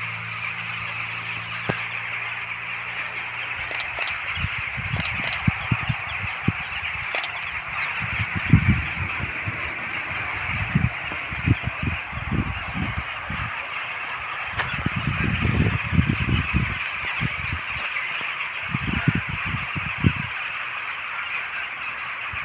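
A huge flock of rooks calling all at once, a dense, unbroken chorus of caws. From about four seconds in, irregular low rumbles hit the microphone.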